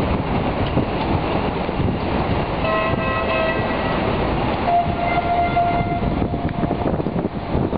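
Busy harbour-front noise, a steady rumble. Two drawn-out pitched tones sound over it, a short one about three seconds in and a longer one about five seconds in.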